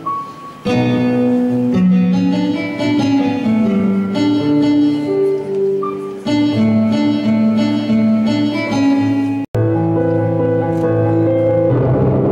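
Yamaha electronic keyboard playing a melody over held bass notes. The sound drops out for an instant about nine and a half seconds in, then the music carries on.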